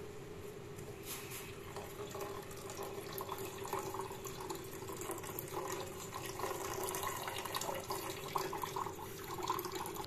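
Milk poured in a thin stream into a steel saucepan of hot tea brew, trickling and splashing from about a second in, over a steady hum.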